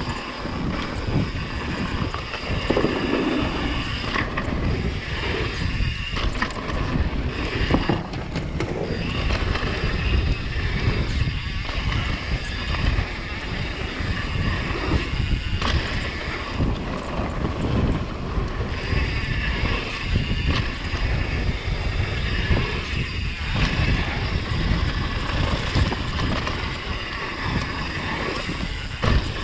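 Wind buffeting the microphone on a mountain bike riding fast down a dirt trail, with the tyres and frame rattling over the ground and small clicks and knocks throughout.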